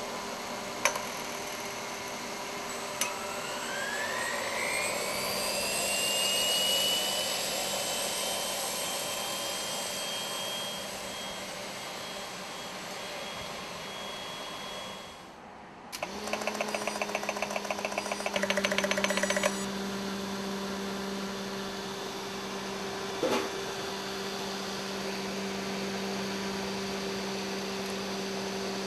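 Homemade turbocharger-based turbojet engine whining as its rotor spins up, the pitch rising over several seconds and then holding steady. After a sudden break, a steady low hum takes over, with a fast, even buzzing for a few seconds.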